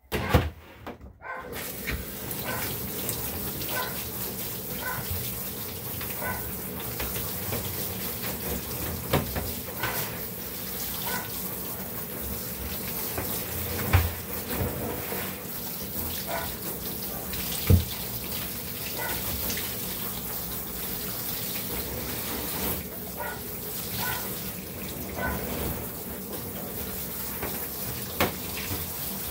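Handheld shower sprayer running steadily as water is sprayed over a wet dog's coat in a bathtub, starting about a second in. A few sharp knocks stand out over the spray.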